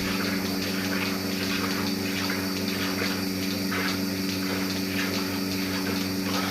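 Steady rushing noise over an even low hum with a fast regular throb underneath, like water running or a small pump.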